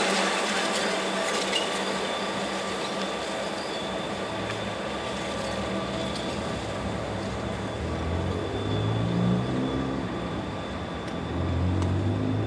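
Reading and Northern diesel locomotives running away down the track, a steady rumble of engines and wheels. Their low engine drone swells twice in the second half.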